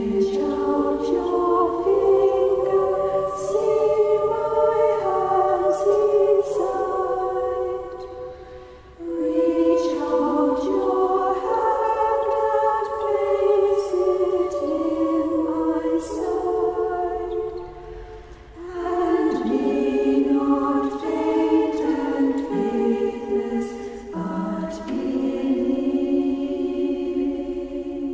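Choir singing unaccompanied, sacred music in long held phrases with brief pauses between them.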